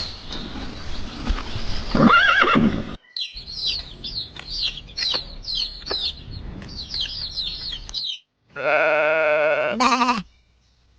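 A horse whinnying about two seconds in, then a run of high, quick chirping from small birds, then a long wavering bleat from a sheep or goat near the end.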